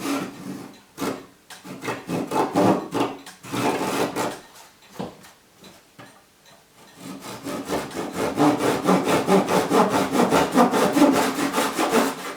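Japanese pull saw cutting thin wood veneer in quick, short, light strokes. There are two runs of sawing, with a brief pause in the middle.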